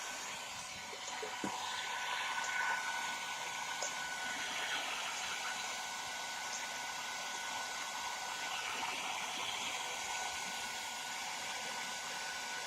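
Hair dryer running steadily, a constant rush of blown air with a thin steady whine from its motor, heating a motorcycle headlamp to loosen the lens from its housing.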